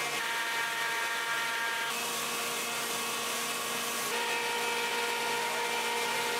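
Steady workshop machinery hum and hiss, a constant whine of several tones, which changes abruptly twice as the sound shifts to a different mix.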